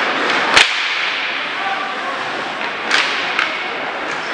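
Sharp cracks of hockey stick on puck during ice hockey play: a loud one about half a second in and a second near three seconds, with a lighter tap just after, over a steady wash of rink noise and faint voices.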